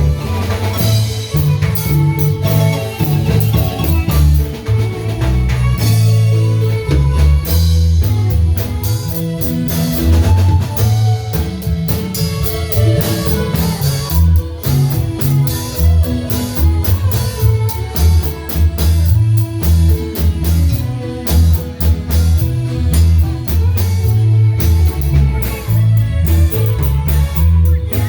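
Marimba band playing, with mallet notes over a strong bass line and drum kit.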